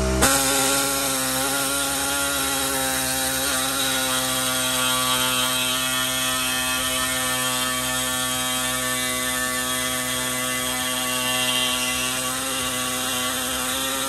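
Handheld power saw with a narrow reciprocating blade cutting a slot through the steel edge of a van's side door. It starts abruptly and runs steadily, with a fast rattle from the blade strokes.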